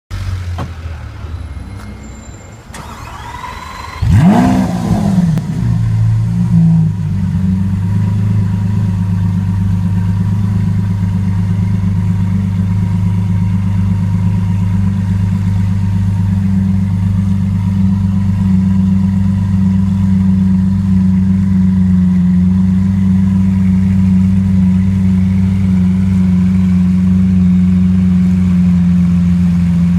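Lamborghini Aventador's V12 engine starting about four seconds in, flaring up in revs and dropping back, then settling into a steady idle, which the owner takes for a misfire.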